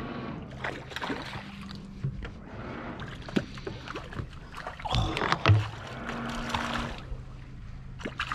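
Splashing and scattered knocks as a hooked perch is played at the surface on a rod, loudest about five seconds in, over a steady low hum.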